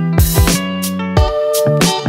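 Background music: sustained pitched instrument parts over repeated drum hits.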